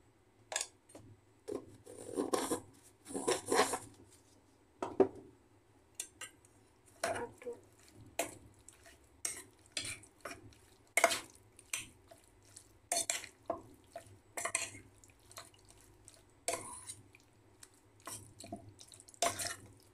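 Metal spoon scraping and clinking against a stainless steel bowl as raw chicken pieces are stirred into a cornstarch marinade, in irregular strokes about once a second, with a longer run of scraping about two seconds in.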